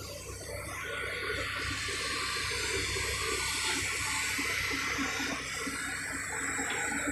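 Steady rushing of wind over the microphone, over the low rumble of a Sumitomo SH350 excavator's diesel engine working.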